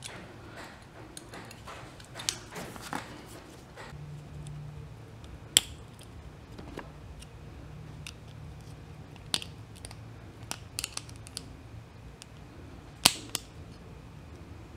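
Scattered small metallic clicks and taps as a small screwdriver and fingers work a spring and detent ball into the synchronizer slider of a ZF S5-42 transmission gear shaft. The loudest click comes about 13 seconds in.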